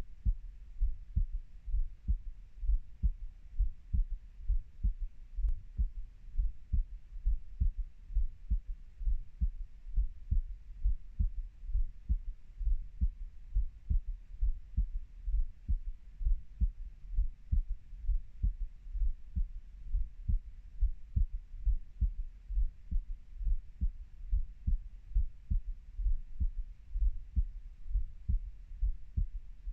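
A human heartbeat: low, regular thumps repeating at an even pace with no break.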